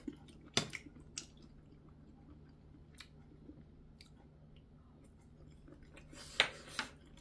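A person eating close to the microphone: quiet chewing, with a few sharp clicks in the first second or so and a short, louder noise about six and a half seconds in.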